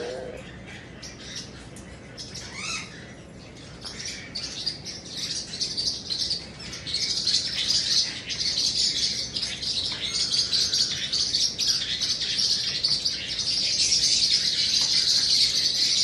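A white cockatoo being scratched up close, making a continuous, choppy hissing that grows louder from about four seconds in.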